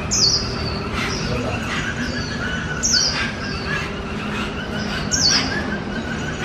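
Caged songbirds calling: three sharp, high, falling notes about two and a half seconds apart stand out among a run of softer chirps and short notes, over a faint steady hum.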